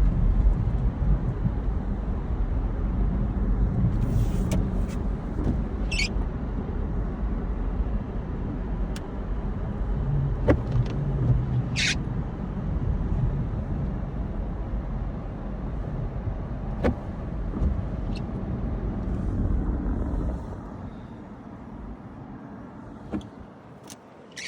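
Car driving on a snowy road, with a steady low engine and tyre rumble and a few short clicks and squeaks. The rumble drops away about twenty seconds in, as the car slows or stops.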